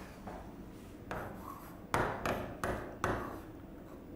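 A pen writing on a board: short scratchy strokes, each starting with a tap. There is a softer one about a second in, then four in quick succession about a third of a second apart.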